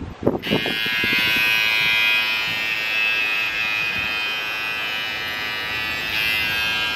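Cordless electric hair clippers switched on about half a second in and buzzing steadily, running but not cutting hair: the blade has come off.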